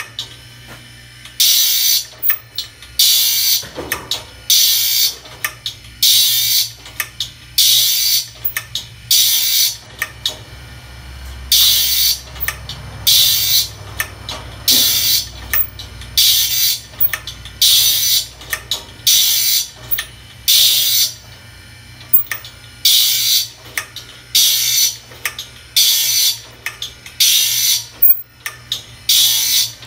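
Foley Belsaw saw sharpener's grinding wheel grinding the teeth of a large circular shingle saw blade one after another: a short harsh grinding burst about every second and a half, over the steady low hum of the sharpener's motor.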